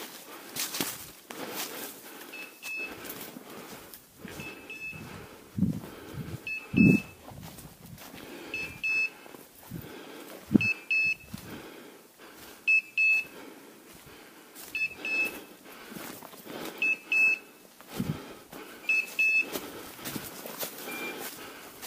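Electronic beeper collar on a pointing dog chirping in short high beeps about every two seconds, over the swish and crunch of walking through dry leaves and brush, with a few dull thumps.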